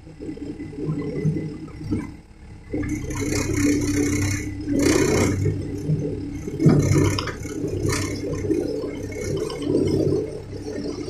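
Cat excavator's diesel engine running steadily while stones rattle and scrape as they are unloaded, with several louder clattering bursts in the middle.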